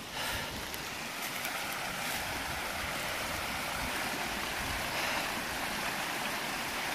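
Small rocky mountain stream running fast over stones, a steady rushing splash.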